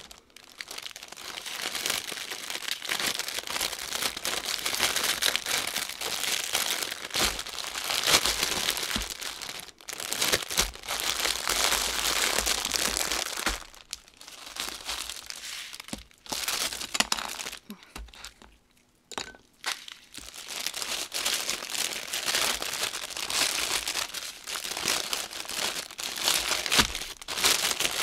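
Small plastic bags of diamond painting drills crinkling and rustling as they are handled and sorted, pausing briefly a few times.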